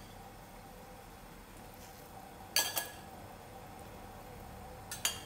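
Metal ladle clinking as it stirs pork bones in a pot of broth: two quick clinks about two and a half seconds in and another near the end, over a faint steady hum.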